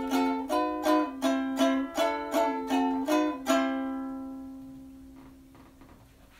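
Closing music on a plucked string instrument: quick strummed chords, about three a second, ending on a final chord about halfway through that rings out and fades away.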